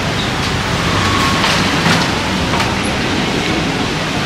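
Steady street traffic noise, with a few short sharp clicks or taps around the middle.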